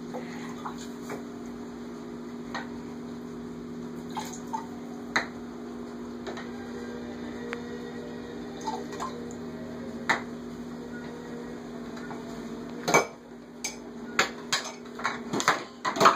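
Dishes and pans clinking and knocking in a stainless steel kitchen sink as a small child handles them, over a steady low hum that stops about thirteen seconds in. The clatter grows busier and louder near the end.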